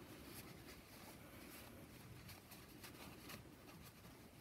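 Near silence, with faint rustling and rubbing of a paper shop rag wiping wet acrylic paint off a small polymer clay piece.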